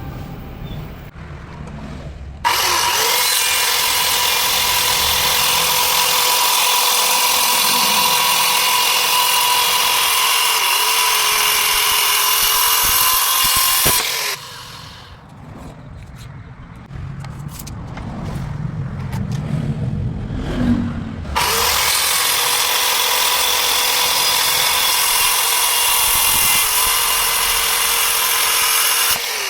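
An electric woodworking power tool running in two long stretches, about twelve seconds and then about eight, each starting and stopping suddenly, with a steady high whine over a loud hiss. Quieter low sounds fill the gap between the two.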